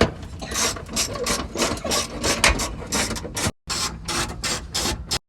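Ratchet wrench clicking in quick repeated strokes, about four clicks a second, with a brief break partway through.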